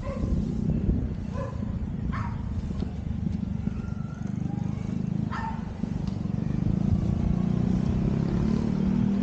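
A steady low rumble of wind and riding noise on the camera's microphone, with a dog barking a couple of times, about two and five seconds in.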